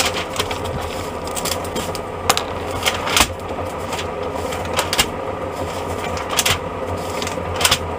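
Zojirushi 2.2-litre electric water boiler heating water: a steady rumbling hum broken by irregular sharp clicks and pops, about one a second.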